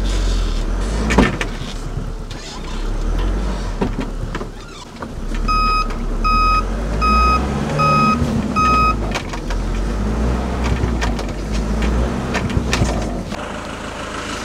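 Motorhome engine running hard and rising and falling as the vehicle tries to reverse out of deep mud, its drive wheels bogged in soft ground. Partway through, its reversing alarm beeps five times, about one and a half beeps a second. The engine sound drops away near the end.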